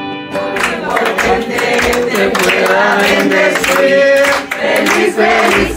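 A group of people singing a Spanish birthday song together, with rhythmic hand clapping, as a guitar chord dies away at the start.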